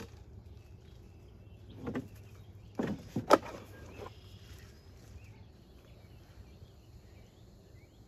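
A few sharp knocks and a rattle between about two and three and a half seconds in, from beekeeping gear being handled at the hive. Under them run a low steady hum and faint bird chirps.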